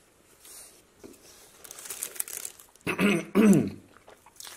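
A man eating a burrito makes two short, loud, cough-like throat sounds in quick succession about three seconds in, the second falling in pitch. They come after about a second of faint crinkling.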